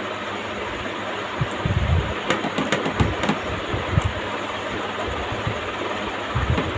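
Eating sounds: irregular soft low thumps and a few sharp clicks of chewing and handling food, over a steady background hiss.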